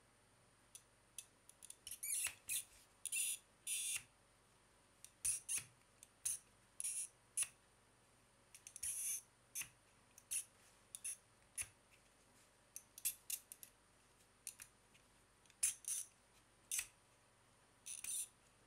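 Plastic wedges of a Rubik's Snake being twisted by hand. Short, sharp clicks and brief rasps come at irregular intervals as segments are rotated against each other.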